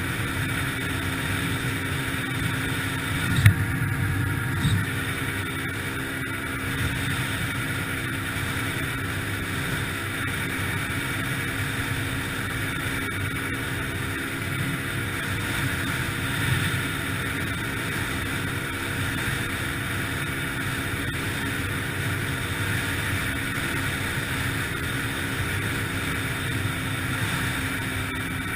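Yamaha TT-R125LE dirt bike's single-cylinder four-stroke engine running steadily under way, with a sharp thump about three and a half seconds in and a smaller one a second later.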